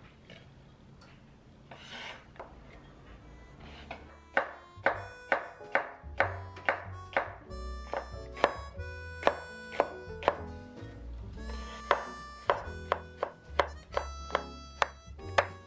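Faint, sparse taps of a chef's knife slicing vegetables on a wooden cutting board. From about four seconds in, background music with sharply plucked notes over a bass line takes over and is the loudest sound.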